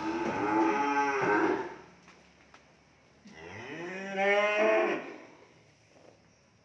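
A cow mooing twice, each a long call: the first is already sounding and breaks off about a second and a half in, and the second starts about three seconds in and falls away near the five-second mark.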